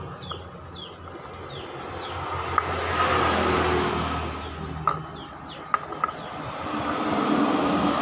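Motor vehicles passing by, their rushing sound swelling and fading twice, with a few sharp metallic clicks from hands working on a scooter's CVT pulley and belt. A bird chirps in short falling notes.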